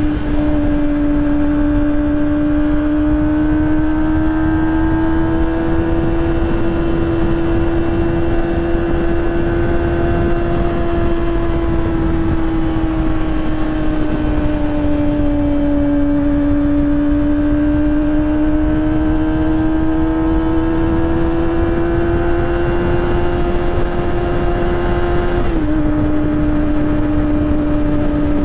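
Kawasaki ZX-25R's 250 cc inline-four running at high revs through a Prospeed Shark high-mount exhaust while riding, holding a steady high note whose pitch slowly rises and falls, with a small drop in pitch near the end. A steady rush of road and wind noise runs underneath.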